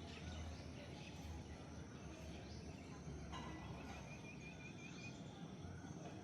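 Bulbul calling faintly over a steady low hum, with a few short falling notes and, around the middle, a quick run of about seven warbled notes.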